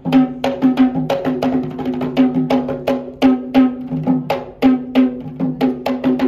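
Music of fast drumming: a steady stream of sharp, pitched drum strokes, about five a second.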